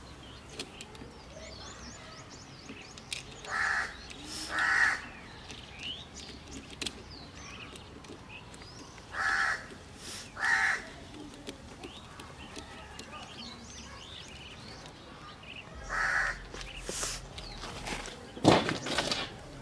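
A crow cawing, two caws about a second apart, three times over, with small birds chirping faintly in between. Near the end a loud rustling thump as the microphone is handled and moved.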